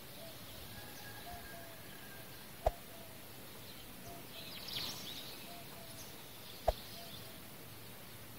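Faint outdoor ambience of birds chirping, with a short note repeating and a brief burst of higher chirps in the middle. Two sharp clicks of a like-and-subscribe button animation come about four seconds apart and stand out as the loudest sounds.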